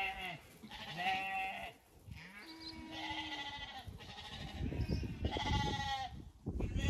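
Zwartbles sheep bleating: several separate bleats, one every second or two, with a low rumble under the later ones.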